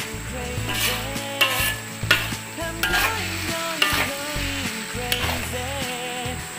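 Metal spatula stirring and scraping noodles around a hot wok, scrapes roughly once a second over the sizzle of frying. Background music with a melody and bass runs underneath.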